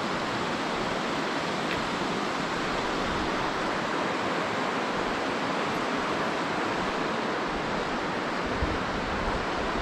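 Steady rush of the Virgin River flowing through the narrow canyon, an even hiss of moving water with no break, and a brief low bump near the end.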